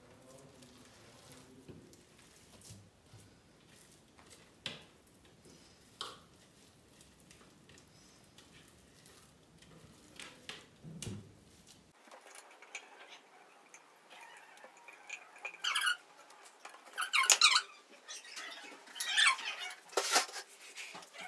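Silicone spatula scraping out a food processor bowl: faint knocks of handling at first, then a run of short, high squeaks in the second half, getting louder and more frequent toward the end.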